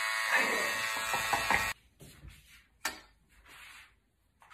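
Electric hair clippers buzzing with a steady hum that cuts off suddenly a little under two seconds in. Then near quiet, with one faint click about three seconds in.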